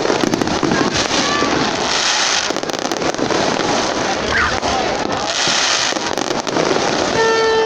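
Fireworks display: aerial shells bursting in a dense run of crackling and popping, with repeated hissing swells as the bursts spread.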